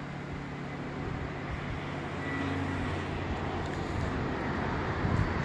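Steady low mechanical hum over outdoor background noise, rising slightly about a second in and then holding level.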